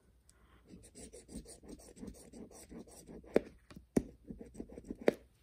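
A coin scraping the coating off a scratch-off lottery ticket in quick repeated strokes, about five a second, with three sharper clicks of the coin on the card in the second half.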